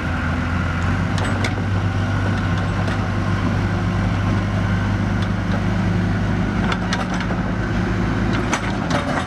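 Backhoe loader's diesel engine running steadily as it drives across a dirt lot, a constant low drone with a few light clicks.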